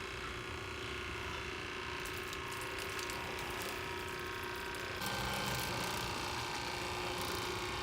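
Pressure washer running steadily, drawing antifreeze from a bucket through its pump and hose to winterize it. The sound changes and grows a little louder about five seconds in.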